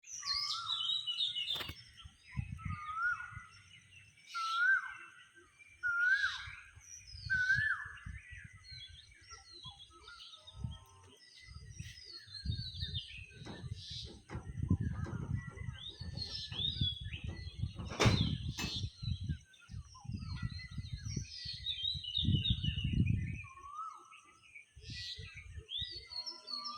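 Several songbirds chirping and calling, one repeating a short rising whistled note about every second and a half in the first eight seconds. Low rumbling bursts come and go through the middle, with a sharp click near the middle.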